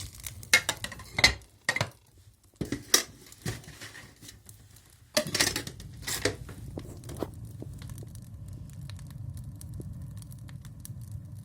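Stove with a series of sharp clicks and knocks, then from about five seconds in a steady low hum, the stove drawing and humming, with scattered small crackles over it.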